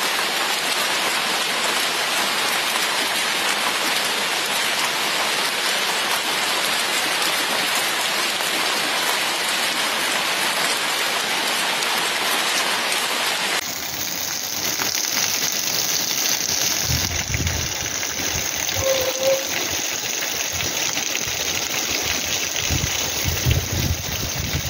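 Heavy rain pouring steadily onto standing water and wet ground. About halfway through it changes to a duller, slightly quieter downpour, with a few low rumbles in the later seconds.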